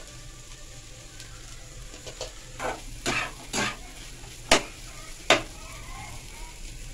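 A spatula stirs and scrapes a potato-and-egg filling in a frying pan over a low, steady sizzle, with several scrapes and two sharp knocks of the spatula against the pan, about four and a half and five seconds in.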